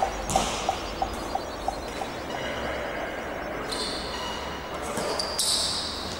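A basketball bouncing on a hardwood gym floor: a run of bounces about three a second, each with a short ringing note, growing fainter over the first two seconds.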